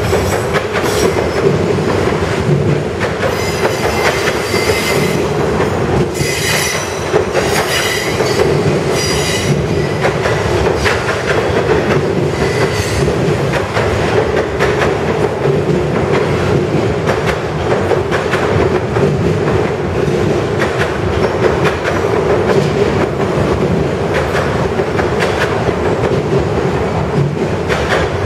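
Freight train of autorack cars rolling past at close range: a steady rumble of steel wheels on rail with repeated clicks and clacks at rail joints. High-pitched wheel squeal comes and goes, strongest in the first half.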